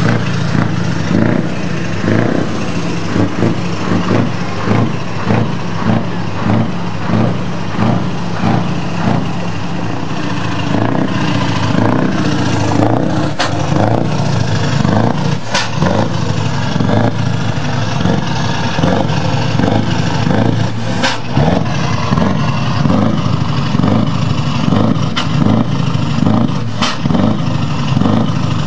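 Scania R500 truck's V8 diesel engine running steadily, with scattered knocks and clatter over it.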